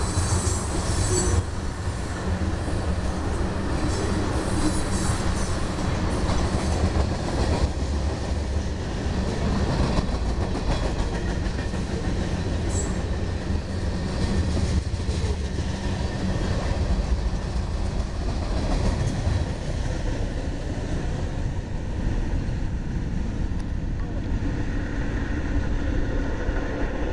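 Tank cars of a CSX freight train rolling past close by: a steady rumble of steel wheels on rail, with clicks over the rail joints and brief wheel squeal in the first seconds and once near the middle. The higher sounds thin out in the last several seconds as the end of the train passes.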